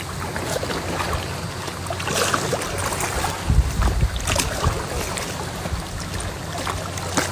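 Small boat out on the water: wind buffeting the microphone over water lapping and splashing around the hull, with a low rumble swelling a little past the middle.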